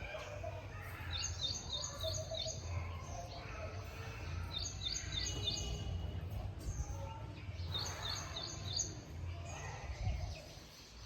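A bird sings three short phrases, each a quick run of about six high chirps, over a steady low background rumble.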